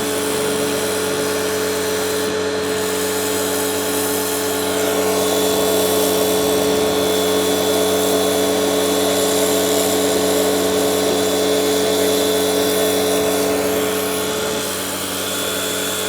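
DeWalt DCMPW1600N battery-powered pressure washer running: a steady motor-and-pump whine under the hiss of the water jet. It gets a little louder about five seconds in and eases slightly near the end.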